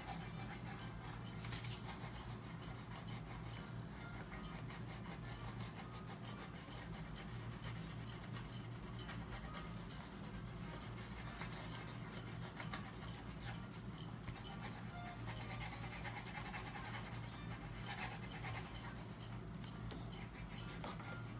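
Coloured pencils scratching back and forth on paper as two children colour in, over a steady low hum.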